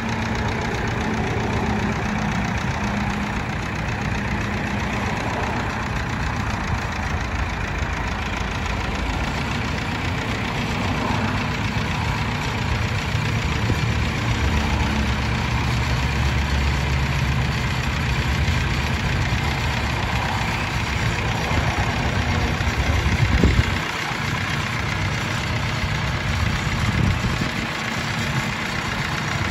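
Allis-Chalmers 175 tractor engine running at low speed as the tractor drives down the trailer's loading ramps onto the pavement. The engine note swells louder midway, and there is a single thump near the end.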